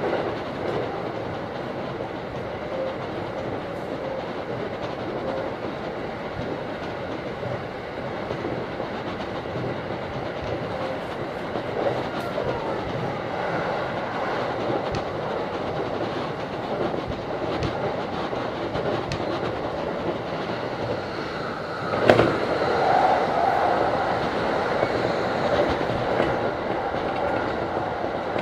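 JR Saikyo Line electric commuter train running at speed, heard from inside the front car: a steady rumble of wheels on rails with clickety-clack at the rail joints. A sharp knock about two-thirds of the way through is followed by a few seconds of louder running noise.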